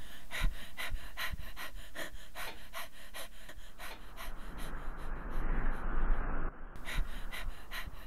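A man panting hard in quick, even breaths, about three a second. A rushing noise joins for a couple of seconds past the middle and cuts off.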